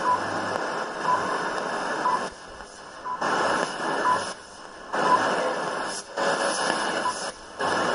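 WWVH shortwave time signal on 10 MHz, heard through a Toshiba TY-HRU30 portable radio's speaker: a faint tick once a second under heavy static that fades down and back up several times.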